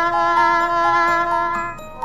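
Music: a slow tune of long held tones over a sustained low note, with the upper notes changing every half second or so and dipping briefly near the end.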